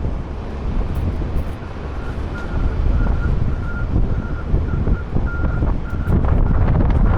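A truck's reversing alarm beeping steadily, about two to three beeps a second, starting about two seconds in: the vehicle is backing up. Under it, a low truck rumble and wind buffeting the microphone.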